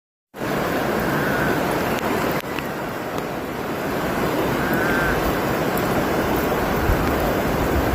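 Steady rushing noise of moving water, with some wind on the microphone, after a brief silent gap at the very start.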